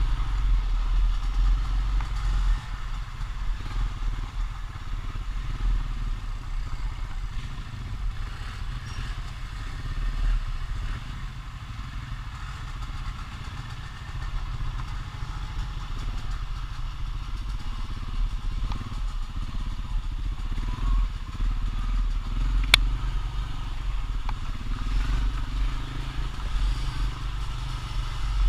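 ATV engine running as the quad is ridden, a continuous low rumble that eases off in the middle and picks up again toward the end, with one sharp click a few seconds before the end.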